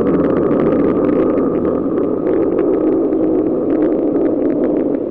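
A made-up monster growl sound effect: one long, steady rasping growl with a fine crackling rattle running through it.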